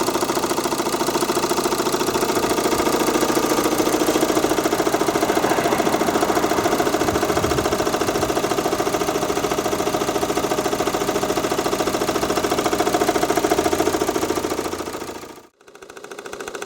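Car engine running steadily with a fast, even knock from its worn crankshaft damper pulley, which has covered 135,000 km. The sound drops out for a moment about fifteen seconds in, then comes back quieter.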